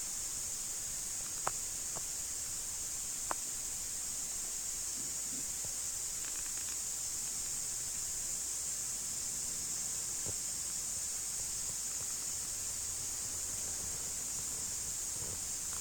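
Steady high-pitched hiss at an even level, with two faint clicks in the first few seconds.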